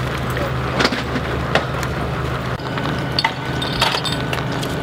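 Sharp metallic clinks and knocks, several spaced about a second apart, from firefighters handling and coupling hard suction hoses, over a steady low engine hum.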